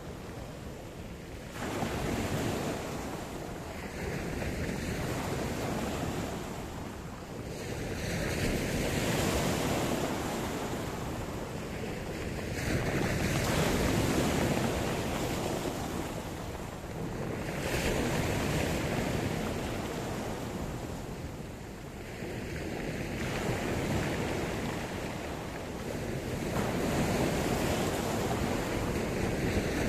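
Sea surf: waves breaking and washing in. The rush of water swells and fades in long surges about every five seconds.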